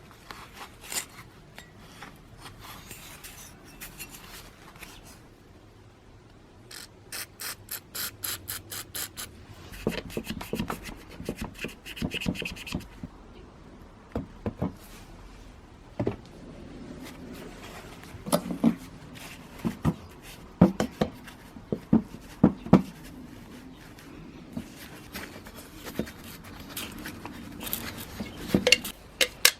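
Hand work on a brush cutter's parts during disassembly: rubbing and scraping, a quick run of even clicks about seven seconds in, and a string of sharp knocks and taps through the second half.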